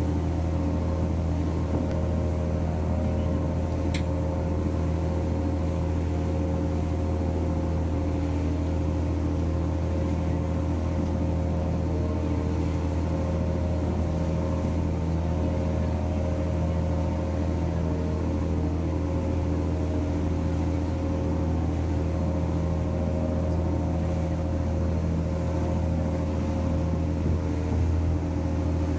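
Passenger boat's engine running with a steady low drone, heard from on board while under way.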